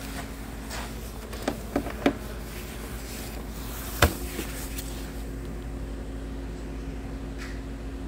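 A few sharp clicks and knocks from gloved hands working plastic hoses and electrical connectors loose in a car's engine bay: three quick ones about one and a half to two seconds in, the loudest just after four seconds, then a few fainter ones. A steady hum runs underneath.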